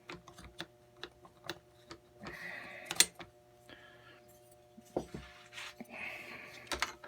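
Scattered light clicks and short scrapes of an aluminium rail top cover being handled and tried over the rifle's gas tube, with one sharper click about 3 s in.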